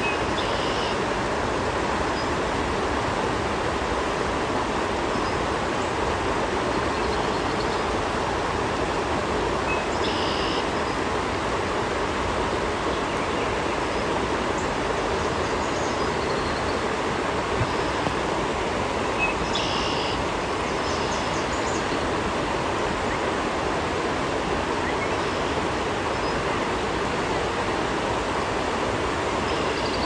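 Steady rush of a shallow river running over rocks in riffles, with a few brief, high bird chirps heard about four times.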